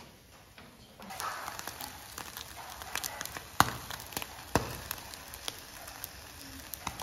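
Chicken kebabs sizzling on skewers over glowing charcoal, with a steady hiss and scattered sharp crackles and pops from the coals. The sizzle starts about a second in, and there are two louder pops near the middle.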